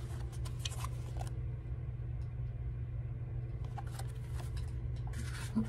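A steady low background hum, with light rustles and clicks from a paper book being handled.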